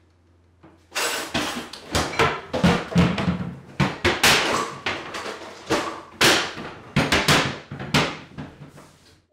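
Kitchen drawers and cabinets being rummaged through in a hurry: a rapid, irregular clatter and banging of doors, drawer and utensils that starts about a second in.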